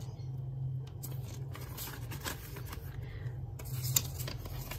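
Paper banknotes rustling and crinkling as they are handled, with a sharper crackle at about four seconds, over a low steady hum.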